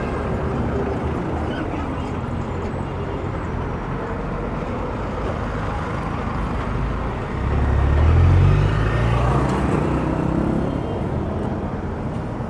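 City street traffic noise: a steady wash of passing vehicles. About seven and a half seconds in, one vehicle's engine passes close, loudest around eight seconds and fading over the next two.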